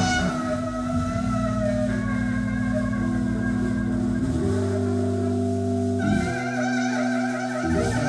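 Live improvised experimental jazz: a sustained low drone that changes pitch a few times, with a wind instrument playing a wavering line above it.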